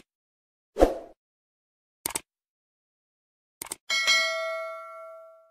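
Sound effects of a like-and-subscribe animation: a soft pop about a second in, quick double clicks at about two and three and a half seconds, then a notification-bell ding about four seconds in that rings out and fades over a second and a half.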